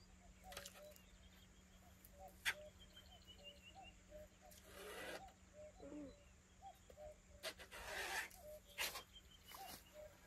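Faint open-air ambience: a bird sings a short high descending trill twice, over steady, repeated short low animal calls. A sharp click about two and a half seconds in is the loudest sound, and two brief rushes of noise come in the middle.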